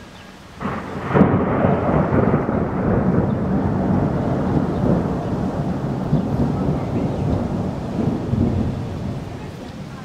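A loud clap of thunder: it breaks suddenly about half a second in, peaks a moment later, then rumbles on for several seconds and slowly fades.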